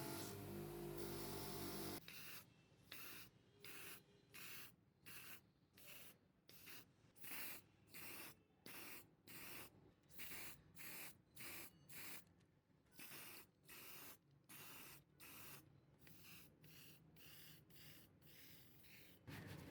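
A steady hum cuts off about two seconds in. It is followed by a long run of short hissing spray bursts, about two a second, each lasting a fraction of a second.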